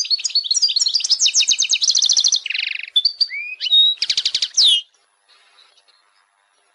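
European goldfinch singing: a fast twittering run of trills and chirps with a buzzy note in the middle, which stops abruptly about five seconds in.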